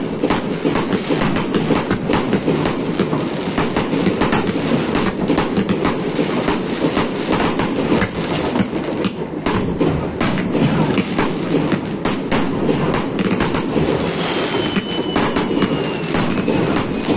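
Fireworks firing and bursting in a continuous barrage of rapid bangs and crackling over a rumble, with a faint descending whistle near the end.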